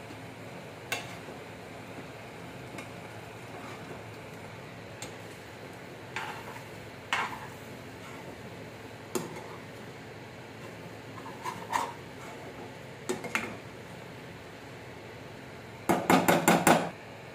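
Metal slotted spoon scraping and knocking against a frying pan as thick, cooking oats are stirred, with occasional single clinks. Near the end comes a quick run of about seven or eight knocks of metal on the pan, the loudest sound.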